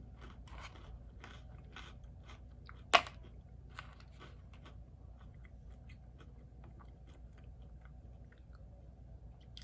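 Close-up chewing and crunching of crisp pretzels, a run of small crunches with one sharper crunch about three seconds in.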